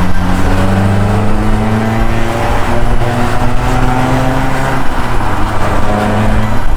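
Naturally aspirated Renault Clio 16-valve four-cylinder engine, fitted in a Renault 5 GT Turbo, accelerating hard with its pitch climbing steadily. The pitch drops at a gear change about five seconds in, then starts climbing again.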